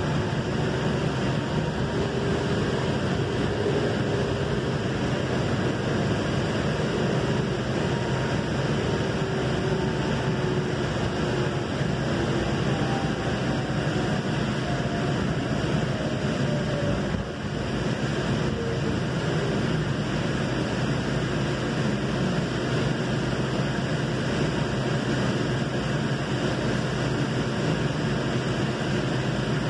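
Valley Metro light-rail car running at speed, heard from inside the car: a steady rumble and rush from the running gear, with a faint whine that glides slowly down in pitch.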